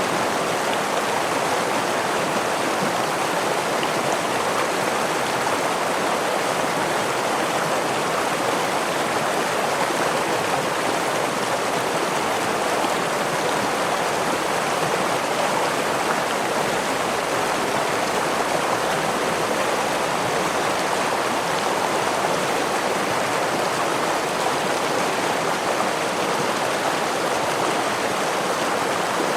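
Stream water running, a steady, even rush that does not change.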